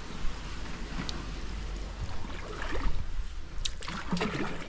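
Water splashing and sloshing in irregular surges over a steady low rumble.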